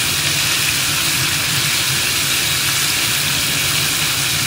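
Breaded chicken deep-frying in hot oil on high heat: a steady, dense sizzle, with a steady low hum underneath.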